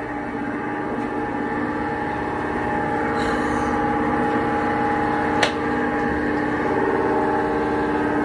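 A steady droning sound of several held tones that slowly grows louder, with one sharp click about five and a half seconds in.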